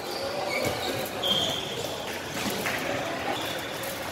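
Indoor volleyball rally in a large echoing gym: a short high squeak a little over a second in, a few knocks from ball contact around the middle, and distant players' voices.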